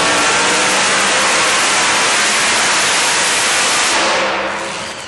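Two-wheel-drive pulling truck's blown engine at full throttle, dragging a weight-transfer sled, then easing off about four seconds in as the pull ends.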